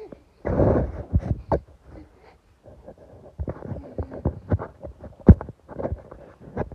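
Handling noise on a phone's microphone as it is moved about: irregular dull thumps and rubbing, with a brief scuffing noise about half a second in and a sharp knock about five seconds in.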